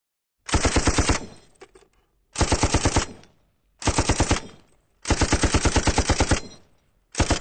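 M60 machine gun firing short bursts of automatic fire at about ten shots a second. There are four bursts, each under a second to about a second and a half long, with a brief echo after each, and a fifth burst starts near the end.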